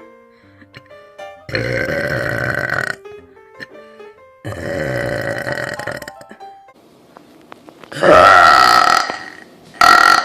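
A girl burping: three long, loud burps of about a second and a half each, with a shorter one near the end. Soft music plays in the gaps between them.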